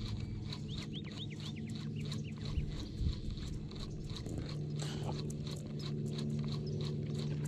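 Minn Kota electric trolling motor humming steadily, its pitch shifting slightly about halfway through, with a fast regular ticking over it. A few short bird chirps about a second in.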